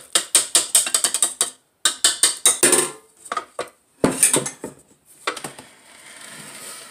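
Rapid metal clicking and rattling as the wire whisk is worked off a KitchenAid bowl-lift stand mixer and the stainless steel bowl is lifted off its support arms, with a few more knocks about four seconds in and a quieter steady hiss near the end.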